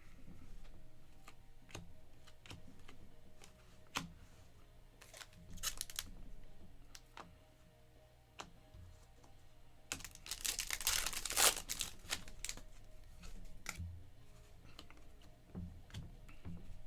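Trading cards being handled: scattered light clicks and taps of cards being flipped and stacked, with a louder rustle of cards sliding against each other about ten seconds in.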